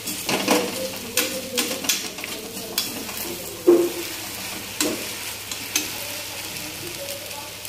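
A slotted metal spatula scraping and knocking against a metal kadhai as sabudana khichdi (sago pearls with fried potato and peanuts) is stirred, over a steady sizzle of frying. There are about eight separate scrapes, with the loudest a little past halfway and a brief metallic ring after some of them.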